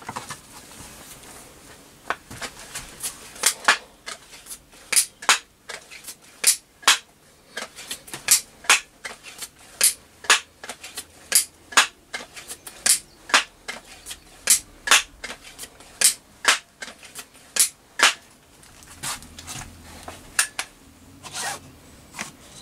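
Setra pump-up air rifle being pumped up: a run of sharp metallic clicks and clacks, mostly in pairs, about one pair every second and a half.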